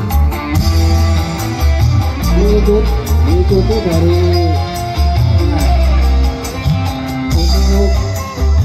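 Loud music played through a large outdoor sound system run from a mixing desk and power amplifiers: deep bass notes held in long blocks, a wavering melody line over them, and a quick ticking beat on top.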